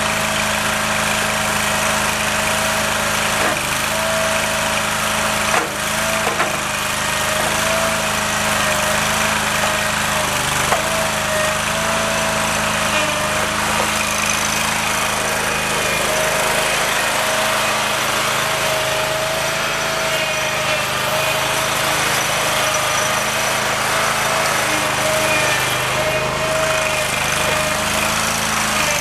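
Toro Dingo TX427 mini skid steer running steadily, its engine hum under a whine that wavers slightly in pitch, with a couple of brief knocks in the first few seconds.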